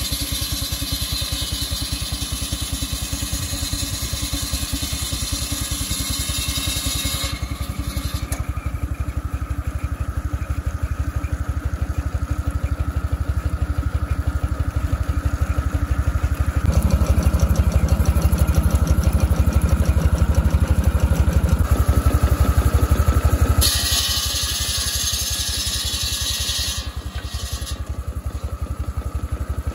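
Half-scale Case steam traction engine running steadily with rapid, even exhaust beats while it drives a flat belt to a saw. It grows louder and heavier for about six seconds past the middle, then eases back.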